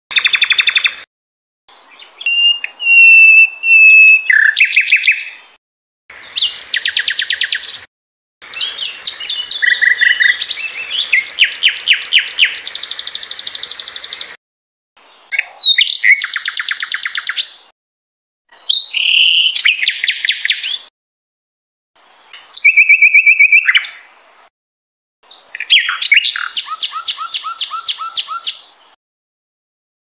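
Sikatan londo songbird singing: a run of loud, varied phrases of fast repeated notes, trills and clear whistles, each one to three seconds long, separated by short silences.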